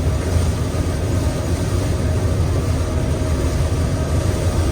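Gleaner M2 combine running steadily while harvesting soybeans: an even low drone of engine and threshing machinery, with a faint steady whine above it.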